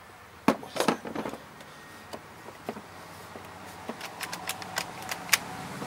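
Scattered sharp clicks and knocks of hand work on the plastic handle of a Husqvarna 122HD45 hedge trimmer while its stop switch and spade connectors are fitted. A louder click comes a little past five seconds.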